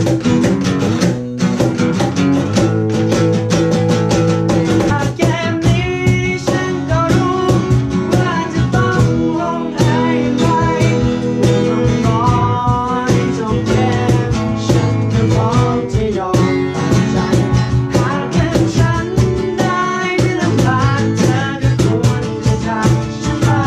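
Background music: a guitar-led song with a steady strummed beat and a melody line over it.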